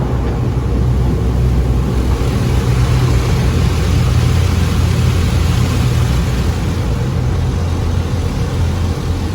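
Steady low rumble and road noise inside a moving car's cabin, swelling slightly mid-way.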